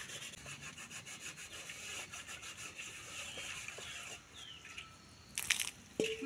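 Rapid, rhythmic scraping strokes, several a second, then a louder, sharper scrape about five and a half seconds in.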